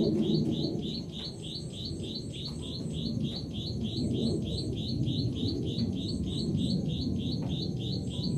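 Rapid high-pitched chirps repeating evenly, about four a second, over a steady low murmur.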